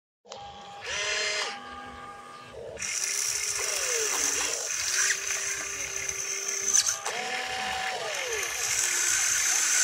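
Electric motors of an RC excavator whining in short runs as the cab swings and the boom and bucket move, each whine rising in pitch as it starts and falling as it stops. A steady high hiss runs under it from about three seconds in.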